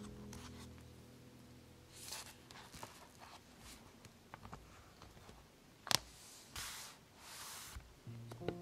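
Faint handling sounds of a brass binder clip being fitted to the edge of a journal page: paper rustling and rubbing, a sharp click about six seconds in, then two soft swishes of paper. Soft background music fades out at the start and comes back near the end.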